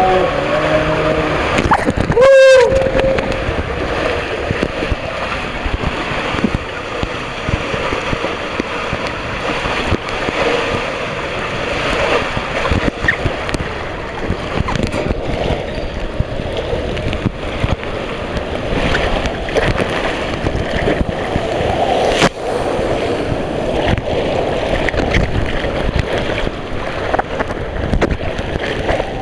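Water rushing and sloshing around a rider sliding down a water slide tube, heard close up on a camera carried by the rider. A brief loud squeal about two seconds in, and a single sharp knock near the end.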